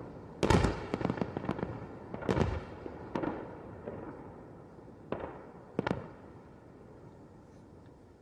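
Fireworks exploding: a loud bang about half a second in, then crackling pops and further scattered bangs every second or so, thinning out and fading after about six seconds.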